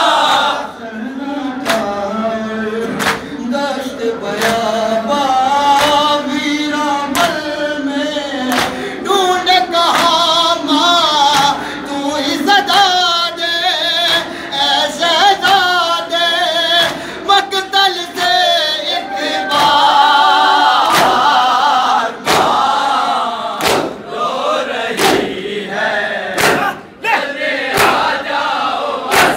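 Men chanting an Urdu noha lament: a lead reciter sings into a microphone and a group of voices answers him, over a steady beat of hands slapping chests (matam).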